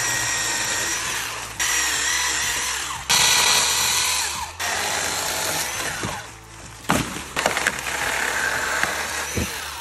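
Sun Joe 24-volt cordless handheld mini chainsaw with a 5-inch bar running and cutting through tree branches, its electric motor whining steadily. It comes in several stretches that start and stop abruptly, with a few sharp knocks in the last few seconds.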